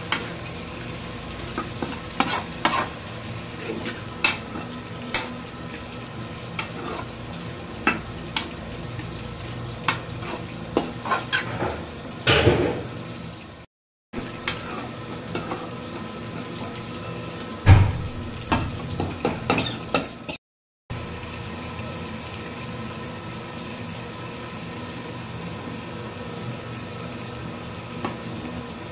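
Steel spoon stirring chopped amaranth greens in an aluminium kadai, clinking and scraping against the pan again and again over a faint frying sizzle and a steady low hum. The sound drops out briefly twice.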